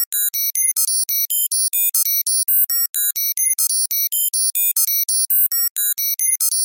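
Synthesized computer data-processing sound effect: a rapid, unbroken run of short, high-pitched electronic bleeps at constantly changing pitches, about six a second.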